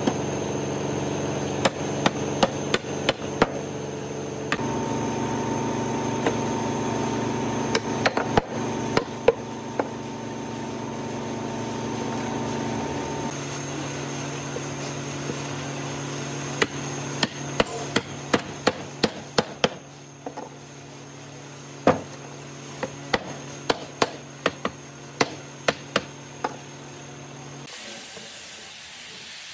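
Hammer blows on wood: sharp taps in irregular runs, some quick and some spaced a second or more apart, over a steady hum.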